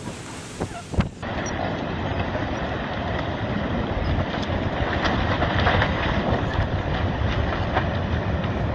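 Wind rushing and buffeting the microphone, a dense steady noise that starts abruptly about a second in, just after a sharp knock.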